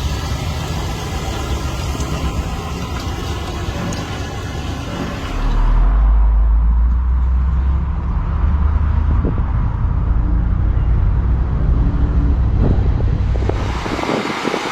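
1959 Cadillac's 390 V8 running smoothly. About five seconds in it grows louder and deeper and sounds muffled for several seconds, then clears again near the end.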